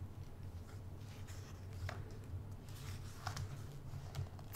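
Quiet room tone: a steady low hum with a few faint clicks scattered through it.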